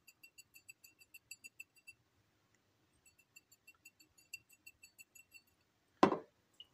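Hand-turned pepper grinder ratcheting over spaghetti squash halves: two runs of quick, even clicks, about seven a second, with a short gap between them. A brief louder thump comes near the end.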